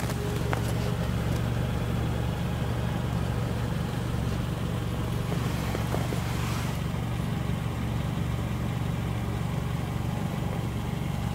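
2017 Mitsubishi ASX's 2.0-litre MIVEC 4B11 inline-four idling steadily, heard from underneath the car by the exhaust.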